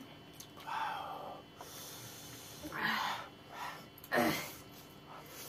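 Noodles being slurped off a fork, with sniffling, hissing breaths from eating very spicy food: four short bursts, the loudest slurp about four seconds in.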